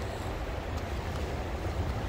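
Wind buffeting the microphone outdoors: a steady low rumble with an even hiss above it.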